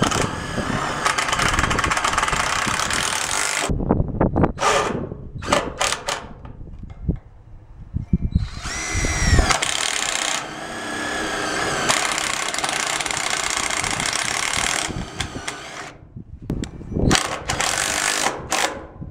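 Cordless drill-driver driving screws into a container's sheet-steel wall panel, running in bursts: a long run at first, short blips, a rising spin-up about eight seconds in, another long steady run, then short bursts near the end.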